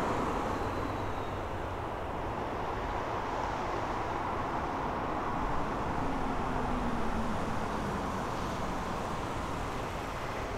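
De Havilland Dash 8-400 turboprop engines and propellers at takeoff power, a steady rushing drone as the aircraft rolls and lifts off. A faint low tone slides slightly downward near the middle.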